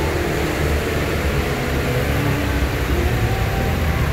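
Box truck engine running with a steady low rumble as the truck drives slowly through deep floodwater, with the water churning and washing around its wheels.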